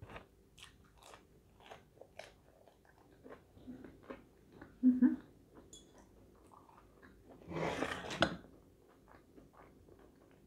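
Close-up chewing of crunchy breaded fried fast food, with many short crunches and wet mouth sounds. A louder burst of noise lasting about a second comes about eight seconds in.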